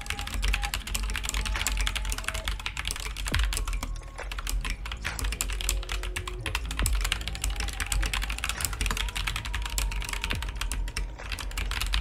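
Fast, continuous typing on an Asceny One 60% mechanical keyboard with Gateron Brown tactile switches. The keystrokes come as a dense run of soft, non-clicky key presses and bottom-outs.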